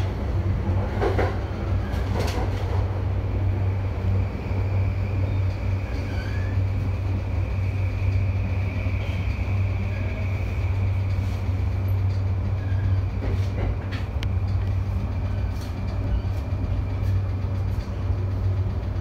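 JR Yamanote Line commuter train running along the track, heard from inside the train at the front: a steady low rumble and hum with a few rail clicks, and a high whine that holds for several seconds in the middle.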